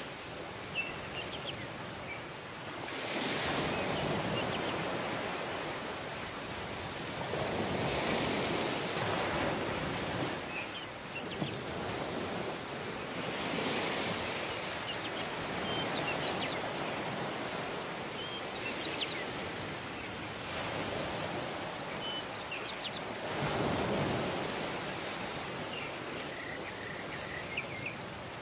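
Ocean waves washing in, swelling and easing about every five seconds, with small birds chirping faintly now and then.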